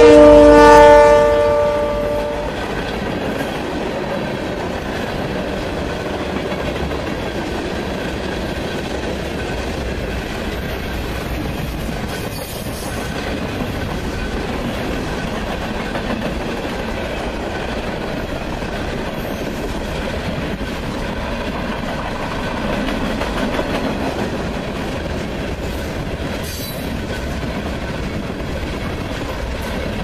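Union Pacific EMD GP40-2 diesel locomotive's horn sounding a loud chord of several tones as it passes, fading out about two seconds in. Then the freight train's tank cars and covered hoppers roll steadily past at close range, their wheels clacking on the rails.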